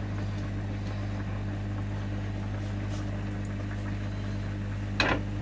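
Steady low machine hum with a few even, buzzing tones, and a single sharp knock near the end.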